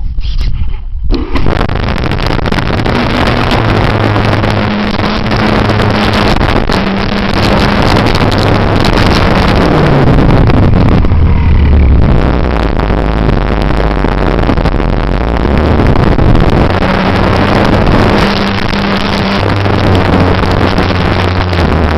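Airflow rushing over the microphone of a camera riding on an electric radio-controlled model plane in flight, starting suddenly about a second in, with a low motor-and-propeller drone underneath that steps up and down in pitch.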